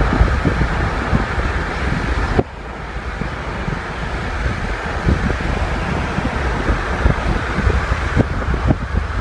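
Car travelling at road speed, heard from inside: steady tyre and road rumble with wind noise on the microphone. The level drops suddenly about two and a half seconds in, then the same rumble carries on.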